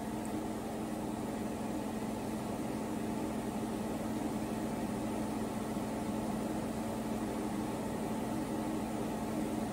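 Steady hum of a running household appliance, with one constant low tone under an even hiss.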